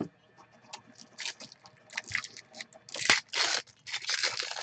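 Trading cards and their packaging being handled: irregular rustling, scraping and tearing, with small clicks, loudest in two spells in the second half.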